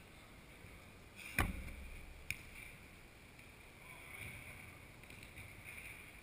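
Football kicked on indoor artificial turf: one loud thump about a second and a half in, then a lighter, sharper knock about a second later, over steady background noise.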